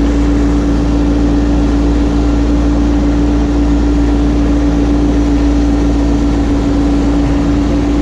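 2018 Massey Ferguson 1526 compact tractor's three-cylinder diesel engine running steadily as the tractor drives, with a steady hum held at one pitch over a low rumble.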